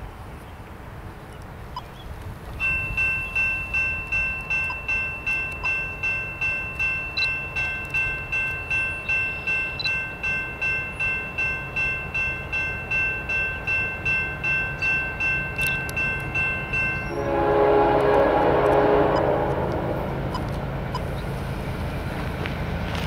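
Railroad grade-crossing bell ringing about twice a second, then stopping as a CSX diesel locomotive sounds its air horn on the approach: loud for a couple of seconds, then held on more softly, over the low rumble of the oncoming train.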